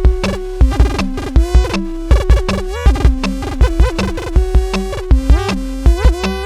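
Electronic music: a repeating rhythm of deep bass hits under synthesizer tones that bend up and down in pitch.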